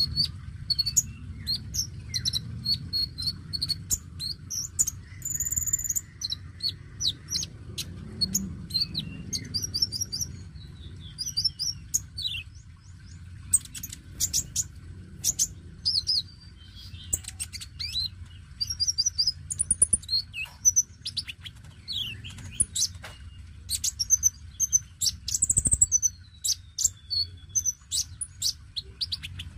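Male konin sunbird singing without pause: quick strings of high, thin chirps and short twittering trills, a hard-singing bird of the kind played to draw song from young konin. A steady low rumble of background noise lies under it.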